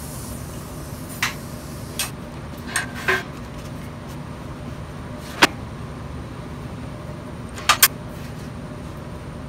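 A TIG welding arc's hiss stops at the start, leaving a steady shop hum. Scattered sharp metal clicks and clanks follow as steel clamps and tools are handled on a steel welding table, the sharpest about five and a half seconds in and a quick double clank near the end.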